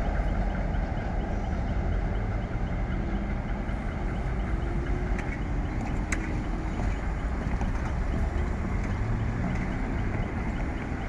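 Cars driving over a railway level crossing, a steady rumble of engines and tyres with one sharp click about six seconds in as a car runs over the rails.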